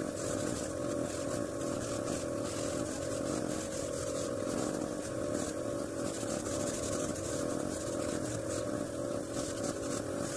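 Small air compressor motor running steadily, with the hiss of an airbrush spraying T-shirt paint that comes and goes as the trigger is worked.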